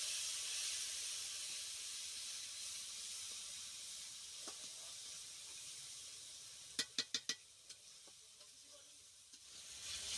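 Masala frying in oil in a kadai, sizzling and hissing after a splash of water, the sizzle slowly dying down. About seven seconds in come four quick sharp taps, and near the end the sizzle swells up again.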